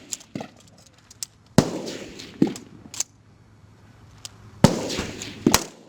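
Rifle shots on a firing range, several rifles firing out of step: about ten sharp cracks at irregular intervals, a few close and loud with a short echoing tail, the rest fainter.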